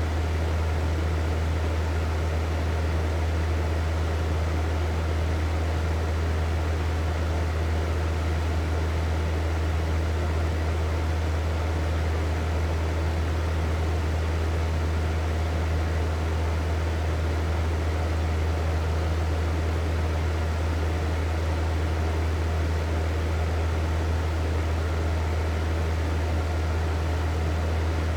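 Hair dryer running steadily: a constant rush of blown air over a strong low hum, with no change throughout.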